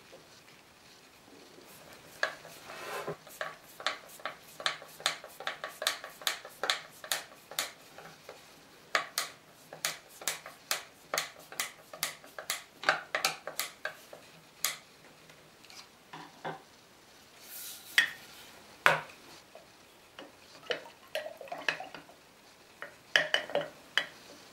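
Quick, light clicks and scrapes of a hand tool and a wooden dowel being worked on a wooden workbench, about two or three a second for some twelve seconds, then a few scattered knocks and a short clatter near the end.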